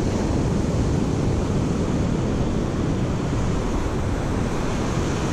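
Wind buffeting the microphone over the steady wash of surf breaking on the beach, an even, unbroken rush heaviest in the low range.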